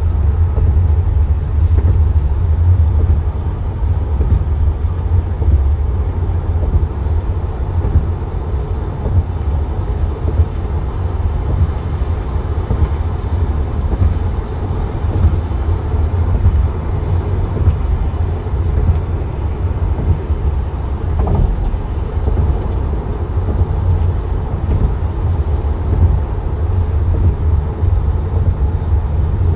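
Steady low rumble of a car driving at freeway speed, heard from inside the cabin: road and tyre noise with engine drone.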